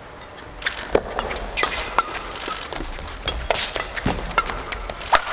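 Badminton doubles rally: a quick run of sharp racket strikes on the shuttlecock, irregular and about two or three a second, mixed with footfalls and short shoe squeaks on the court floor.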